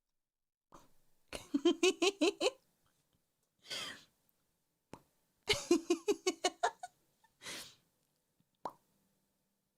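A woman's voice doing a homemade email notification sound: two quick runs of staccato vocal pulses, each followed by a short breathy hiss. A single click near the end.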